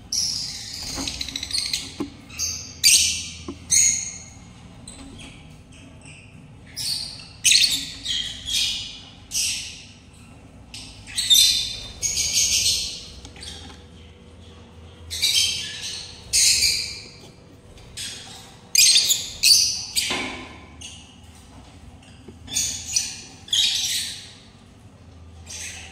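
Caged birds squawking: harsh, raspy calls in short bursts that come in irregular runs, with brief quiet gaps between them.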